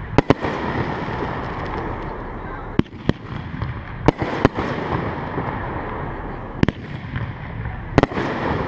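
Aerial fireworks shells launching and bursting overhead: a series of about eight sharp bangs over steady background noise, the loudest at the start and near the end.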